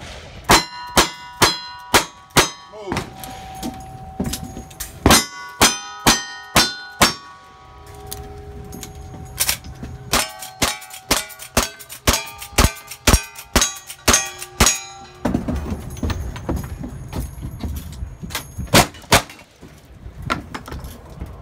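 Strings of rapid gunshots, first from a single-action revolver and later from a long gun, with pauses between the strings. Many shots are followed by the bright ringing of hit steel targets.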